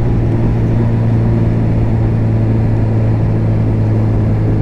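Honda CB1000R's inline-four engine running at steady revs under way, its pitch holding constant.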